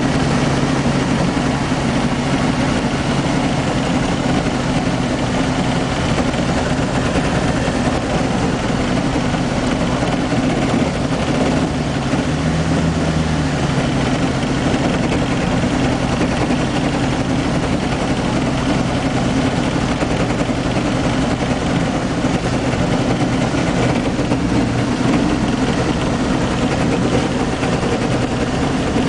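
Engine and propeller of an ultralight Storch, heard from inside the cockpit: a steady, loud drone through the approach and landing, with a brief change in the engine note about halfway through.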